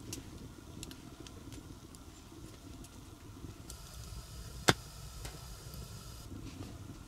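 Wood campfire crackling with scattered sharp pops over a low rumble, and one loud crack about two-thirds of the way through.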